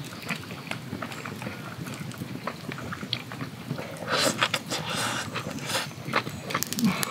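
Ramen noodles slurped from a bowl: a noisy hiss of sucked-in air and noodles from about four to six seconds in, with small clicks and smacks of chopsticks and chewing around it.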